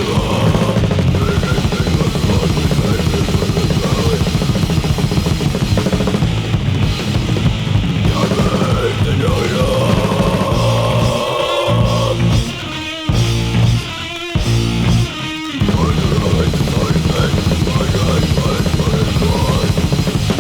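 Loud, heavy punk-metal band recording with a pounding drum kit and distorted guitar. A little past halfway it stutters through several short stop-start breaks before the full band comes back in.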